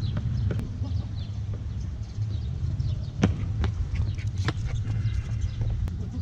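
Footsteps of a person running on stone paving and the patter of a small dog's paws, heard as scattered sharp taps, the loudest about three and four and a half seconds in, over a steady low rumble.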